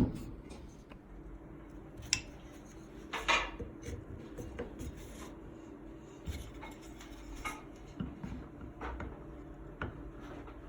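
Wooden bottle-rack parts handled and pushed together by hand: scattered light knocks and clacks, with a short scraping rub about three seconds in.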